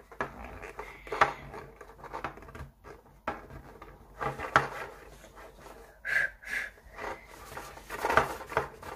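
Hard plastic toy egg being handled and rubbed in the hands, giving irregular light clicks, knocks and rubbing noises.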